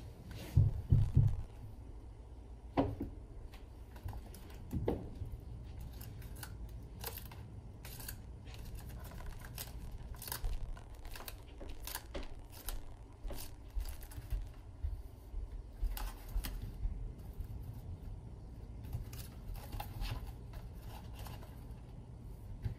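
Paper-craft display frame of folded card with metallic panels being handled on a cutting mat: irregular light clicks, taps and rustles as its hinged sections are flexed and the prism inserts are pushed into place, with a few heavier thumps in the first few seconds.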